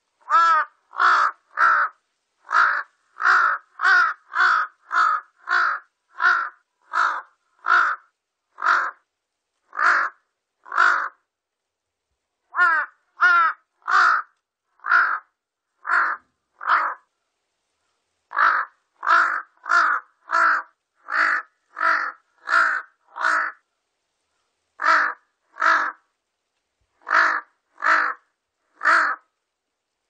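Large-billed crow giving a long series of short, harsh caws, about one to two a second, in runs broken by pauses of a second or two.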